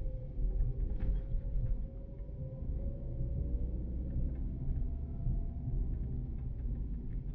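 A car driving on city streets: a steady low road and engine rumble, with a faint whine that slowly dips and then rises in pitch and a light knock about a second in.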